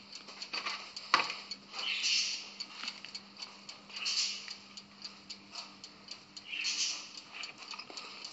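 Thick carrot-and-semolina batter being poured from a plastic bowl into a round cake tin: scattered light clicks with three brief soft swishes, over a faint steady hum.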